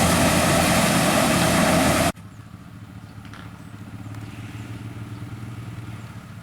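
Corn harvester machinery running loudly, cutting off abruptly about two seconds in. A much quieter engine then runs steadily with a low hum.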